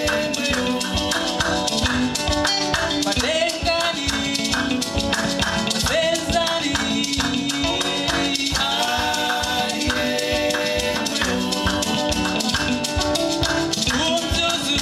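A song playing: singing over a steady, busy beat.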